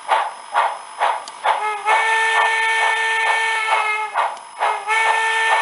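Steam locomotive sound played through a small cube speaker from a tablet or phone, plate cone facing out in a small enclosure. Steady chuffing at about two beats a second, with a long whistle blast starting about two seconds in and a second one near the end.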